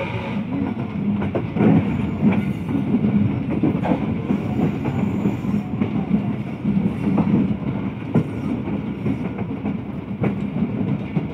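Passenger train running along the track, heard from an open carriage window: a steady rumble with uneven clacks as the wheels cross rail joints.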